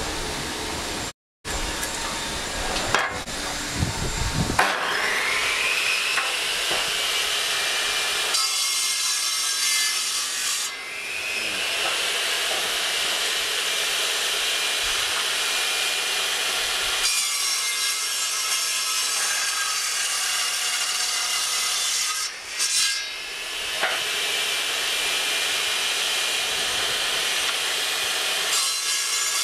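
A table saw spins up, its whine rising to a steady high pitch about five seconds in. It then cuts small pieces of scrap wood into short segments in several passes, a rasping hiss coming and going over the blade's whine.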